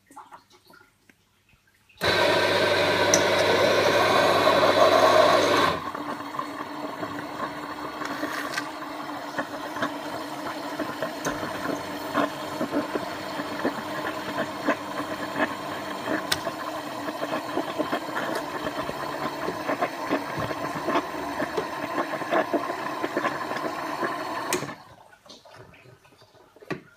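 Bremer Viva fully automatic coffee machine making a cappuccino. About two seconds in, its bean grinder runs loudly for about four seconds. Then the pump runs more quietly and steadily, with crackling as coffee and milk foam pour into the cup, and it stops suddenly a couple of seconds before the end.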